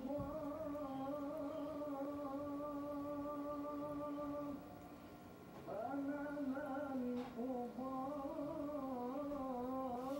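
Domestic cat's long, low warning growl-yowl: one long held moan, a short break about halfway, then a second moan whose pitch wavers up and down, the threat call of a cat warning off another cat near its food.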